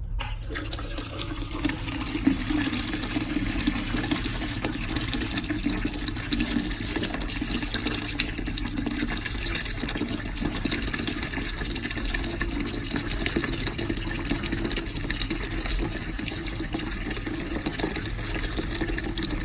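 Water running into a toilet cistern through the float valve as the tank refills once the stopcock is opened: a steady rush that starts abruptly.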